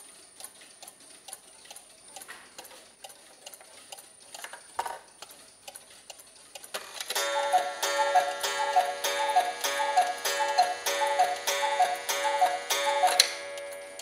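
Black Forest mechanical cuckoo clock ticking steadily, then from about seven seconds in giving its two-note cuckoo call about a dozen times, striking the hour of twelve.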